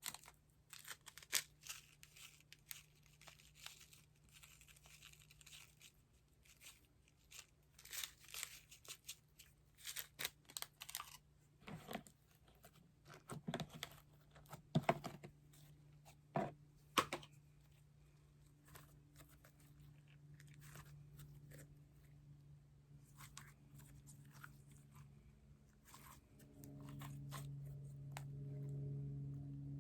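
Slime being squeezed and pulled by hand, giving irregular sticky clicks and crackles, busiest in the first half and thinning out later.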